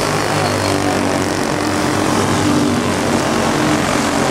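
Racing go-kart engines running hard on a dirt oval as a pack of karts goes past, a steady loud drone of several small engines at slightly different, drifting pitches.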